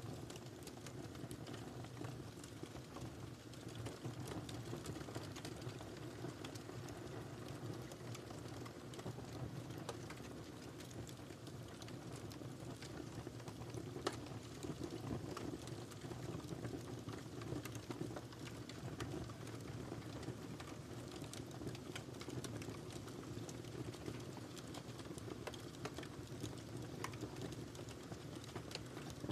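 Wood fire crackling: a steady low rumble of burning with frequent small irregular pops and snaps, one sharper pop about halfway through.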